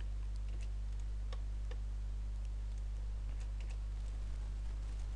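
Irregular light clicks from a computer mouse and keyboard, about a dozen scattered through, over a steady low electrical hum.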